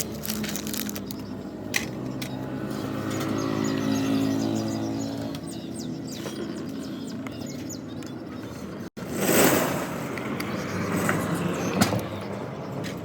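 Car engine running steadily, with a brief break about nine seconds in followed by a louder stretch of noise.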